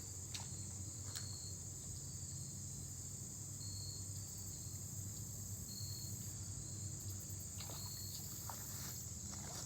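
Steady high-pitched buzzing of insects such as crickets, over a low steady hum, with a few short high chirps and faint clicks scattered through.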